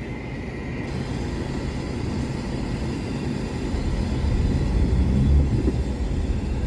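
Renault Duster's engine and tyre noise heard inside the cabin: a steady low rumble that grows louder about four seconds in as the car picks up speed, pulling away in second gear on a snowy road.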